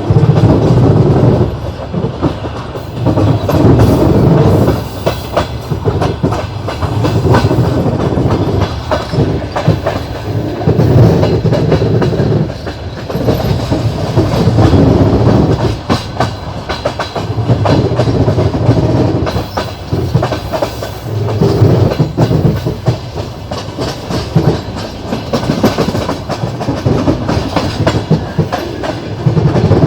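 Passenger train wheels clattering over rail joints at speed, heard aboard the train. The clatter is continuous and swells into loud surges every few seconds.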